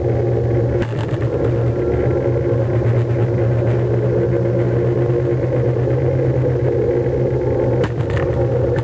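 An engine running steadily with an even, unchanging hum, and a couple of faint clicks about a second in and near the end.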